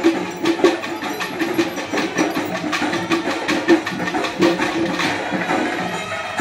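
Temple festival percussion ensemble playing: drums struck in a fast, even rhythm of several strokes a second, with sharp metallic strokes on top.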